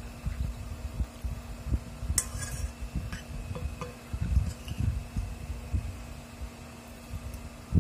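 Eating at close range: irregular low thuds of chewing, and a fork scraping briefly against a glass bowl about two seconds in, with a few lighter clinks.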